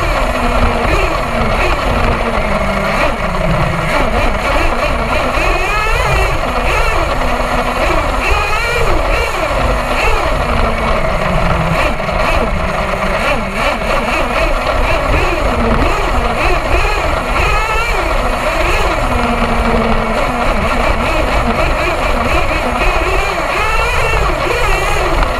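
HPI Savage XL RC monster truck's nitro glow engine running and revving up and down over and over as the truck drives, heard from a camera mounted on the truck.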